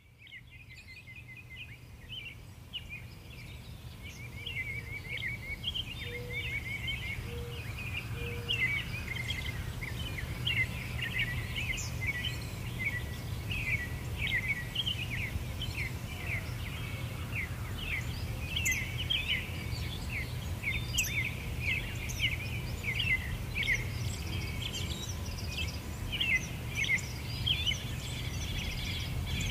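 Many small birds chirping and calling in quick, overlapping short notes over a steady low rumble, fading in over the first few seconds.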